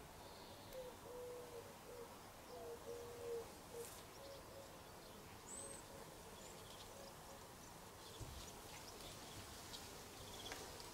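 Quiet garden ambience with a flying insect buzzing faintly, a wavering hum strongest in the first few seconds, and a single short high bird chirp about halfway through.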